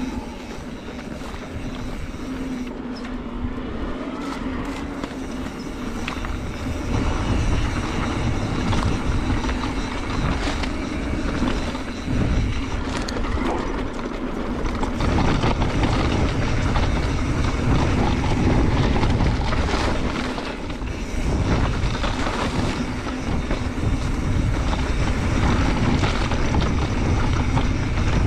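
Mountain bike being ridden on a dirt trail: tyre noise with a constant run of clicks and rattles from the bike. Wind rumble on the microphone grows heavier about halfway through.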